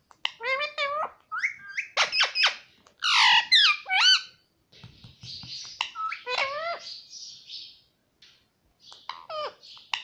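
Male ring-necked parakeet calling and chattering: a fast string of short, swooping whistly calls and speech-like babble, with a rougher, raspy stretch in the middle and a brief pause near the end.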